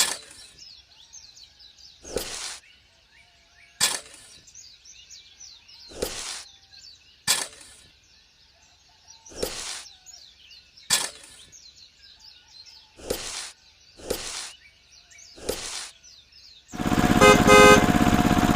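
Birds chirping throughout, with short noisy bursts and clicks about every one to two seconds. About two seconds before the end, a small motor starts and runs loud and steady.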